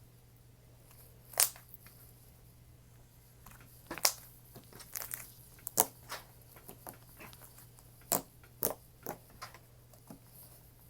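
Thick, glossy slime being stretched, pressed and folded by hand, making irregular sharp pops and clicks, a few of them louder than the rest.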